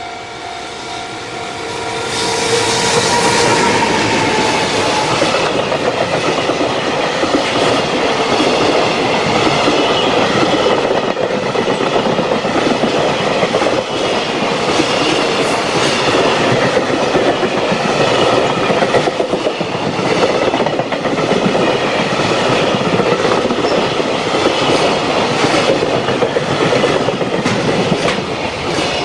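Electric-hauled freight container train passing close by at speed. A few steady tones come from the approaching locomotive, and it goes by loudly about two seconds in. Then comes a long, steady rush of container wagons, with regular clickety-clack of wheels over rail joints.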